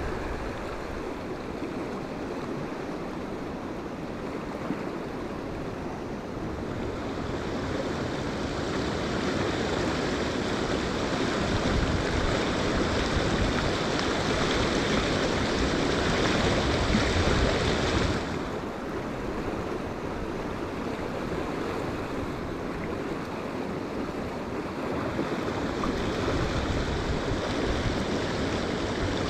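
River water rushing in a steady hiss, swelling louder for several seconds, then dropping off suddenly about eighteen seconds in before building again near the end.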